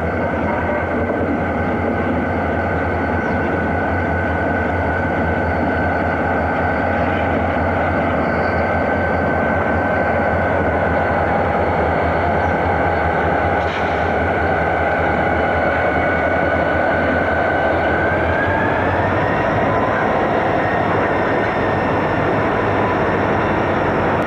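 Conrail diesel freight locomotives passing close by with their engines running and a steady whine over the rumble, which rises slightly about three-quarters of the way through.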